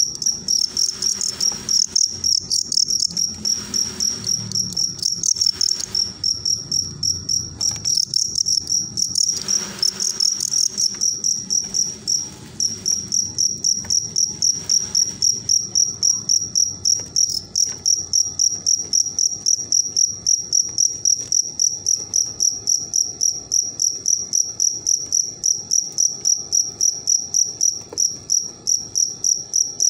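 Male field crickets chirping steadily: a high, pulsed song repeating about three times a second. Scratchy scuffling noise comes and goes under it for the first dozen seconds or so.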